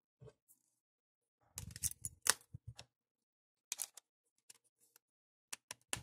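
Plastic clicks and rattles of an HTC Touch Pro 2 smartphone being reassembled: the battery is seated and the back cover snapped into place. The clicks come in a few short clusters, the loudest about two seconds in.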